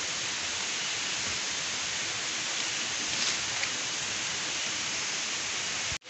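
Steady, even hiss of forest background noise with no distinct events. It drops out suddenly at the very end.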